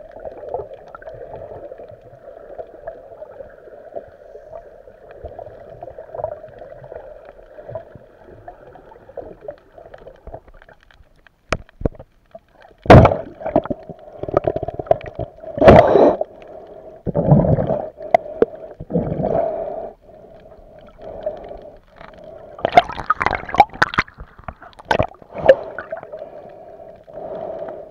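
Muffled water noise heard through an underwater camera: a steady dull rush, then from about halfway a series of loud, irregular sloshing surges of water against the camera as it moves near the surface.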